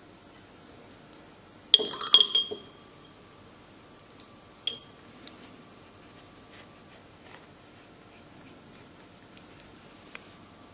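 Small hard objects clinking: a quick run of clinks with a short ring about two seconds in, one more clink a few seconds later, then a few faint ticks.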